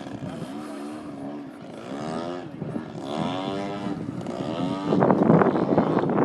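RC model airplane engine buzzing, its pitch repeatedly swinging up and down as the plane manoeuvres and passes. About five seconds in, a louder, rough crackling noise takes over.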